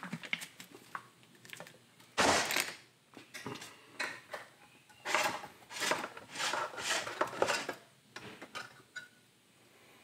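Metal clinks and clanks of a small paint can being handled and its lid pried off with a metal paint-can key, with a loud clatter about two seconds in and a run of knocks a few seconds later.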